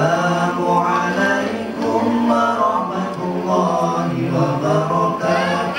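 Melodic chanting of memorised Arabic verse (nadhom), sung in a slow, drawn-out melody with long held notes.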